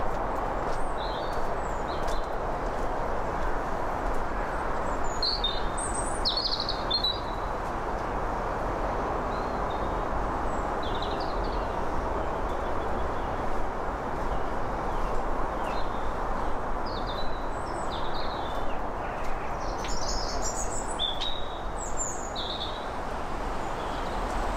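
Small birds chirping in short, scattered high notes over a steady rushing background noise, with light footsteps on the towpath.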